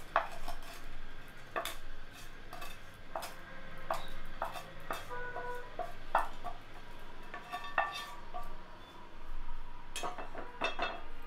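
Wooden spatula scraping and knocking against a metal frying pan, pushing fried paneer cubes over into a kadhai of chickpea curry: a run of irregular sharp knocks and clinks, with brief metallic ringing in the middle.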